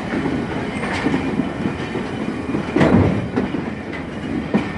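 Passenger train running, heard from the open doorway of a coach: a steady rumble with the wheels clattering over rail joints. The loudest knock comes about three seconds in, with smaller ones about a second in and near the end.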